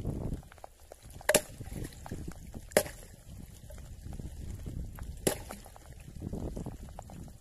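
Water sloshing and splashing against a small boat's side around a hooked tuna held at the surface, with three sharp knocks or slaps about a second and a half apart.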